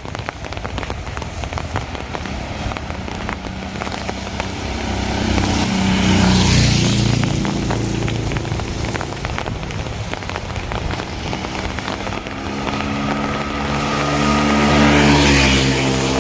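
Steady rain pattering, as two vehicles pass on a wet road: the first about six seconds in, the second, with a plainer engine hum, near the end.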